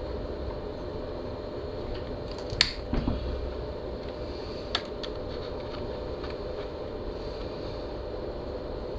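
A few sharp clicks and clinks of an Allen key and small steel bolts being worked and handled, the loudest about two and a half seconds in and another near the five-second mark, over a steady low hum.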